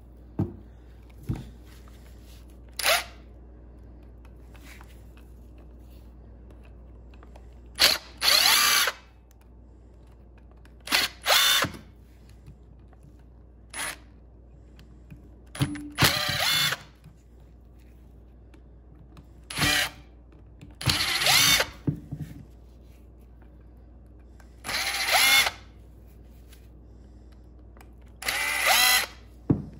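Ridgid cordless driver backing out the screws that hold an old mechanical fuel pump's body together. It runs in about eight short spurts, each a second or less, with pauses between them.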